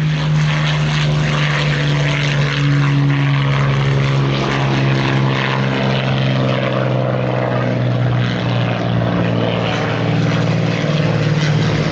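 Hawker Hurricane's Rolls-Royce Merlin V12 engine running loud and steady at high power on take-off, a deep propeller drone with a hiss of prop wash.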